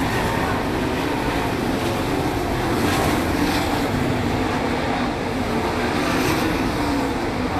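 410 sprint cars racing on a dirt oval, their 410-cubic-inch V8 engines a steady, unbroken roar as the field circles the track.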